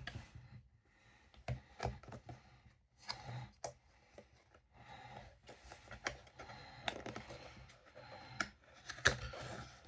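Small cardboard blind box being handled and worked open by hand: scattered light clicks, taps and rustles of the card.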